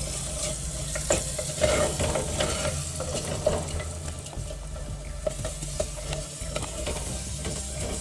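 A wooden spoon stirring and scraping a thick tomato and chilli-powder masala as it sizzles in oil in a clay pot, with irregular scrapes and light knocks against the pot's sides over a steady low hum. This is the stage of frying the chilli powder until its raw smell goes.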